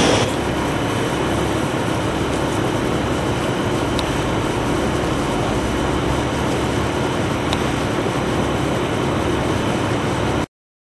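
An engine running steadily, cutting off abruptly near the end.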